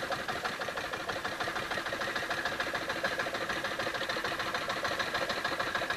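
Small outrigger fishing boat's engine running steadily, with a rapid, even beat.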